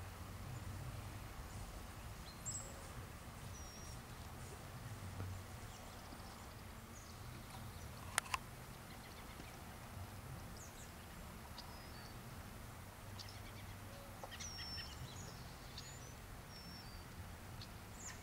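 Faint pasture ambience: scattered short songbird chirps over a low steady rumble, with two sharp clicks about eight seconds in.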